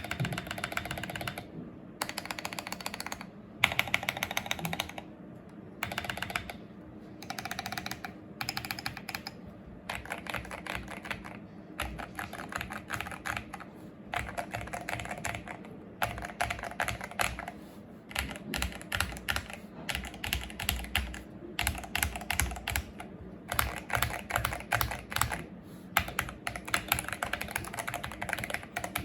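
Fast typing on an Akko 3098B mechanical keyboard, modded with a tape mod and Akko Jelly Purple switches. The keystrokes come in runs of a second or two with short pauses between them.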